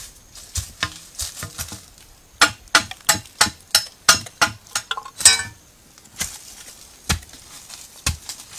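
Sharp knocks on green bamboo: a fast run of about three a second through the middle, then a few single knocks spaced about a second apart.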